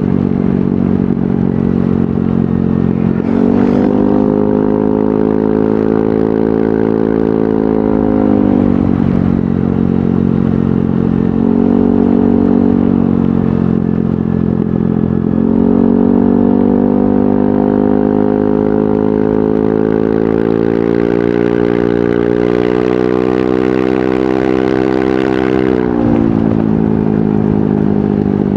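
Yamaha NMAX 155 scooter's single-cylinder engine breathing through an aftermarket VMAX Onyx muffler while riding. The throttle opens about three seconds in and the pitch climbs and holds, eases off near nine seconds, picks up again twice, then holds high until it drops back a couple of seconds before the end.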